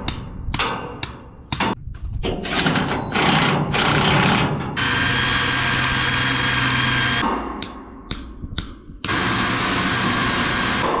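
A small motor run in several short bursts, then held for a steady run of about two and a half seconds in the middle and another shorter run near the end.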